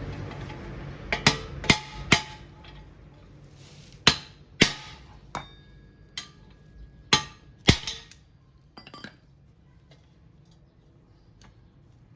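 Hammer blows on metal, about nine uneven strikes, some leaving a brief metallic ring, then a few faint taps. They come as front suspension parts are knocked into place during a front hub bearing replacement.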